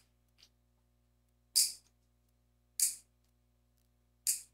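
Metal nail clipper snapping through fingernails: three sharp clips roughly a second and a half apart, with a fainter click just after the start.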